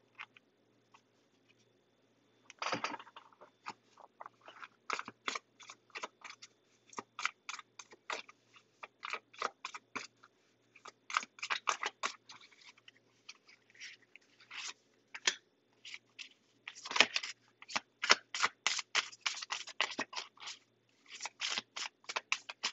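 A deck of paper tarot cards being shuffled by hand: irregular runs of quick card flicks and slaps, starting about two and a half seconds in, with denser flurries about three seconds in and again after about seventeen seconds.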